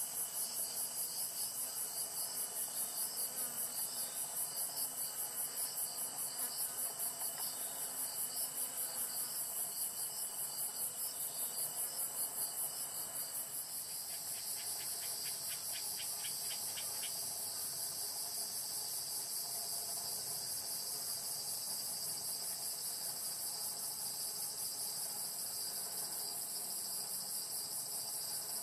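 Chorus of crickets and other insects singing: a steady, high-pitched trill pulsing about three times a second. About halfway through the pulsing evens out and a short run of rapid ticks is heard.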